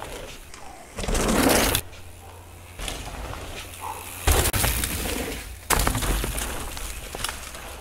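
Mountain bike tyres rolling and skidding over loose dirt in several loud passes, with crunching. The loudest starts suddenly a little past midway as the bike lands a jump.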